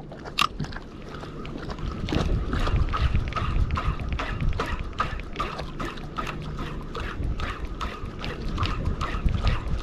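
Fishing boat at sea: a low motor hum and rumble under a quick, uneven run of clicks and knocks, several a second.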